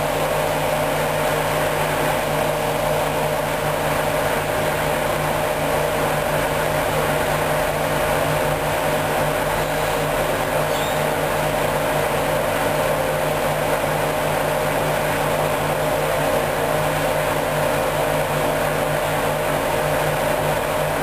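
Hoover Dynamic DYN 10124 DP washing machine running with a steady, unchanging mechanical hum.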